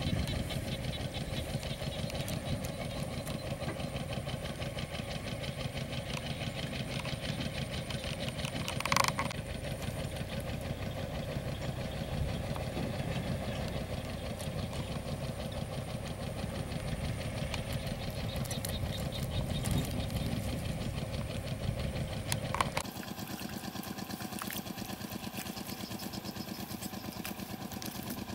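A small engine running steadily with a fast, even pulse, with one sharp knock about nine seconds in. Its low rumble drops out abruptly about three-quarters of the way through, leaving a thinner, higher running sound.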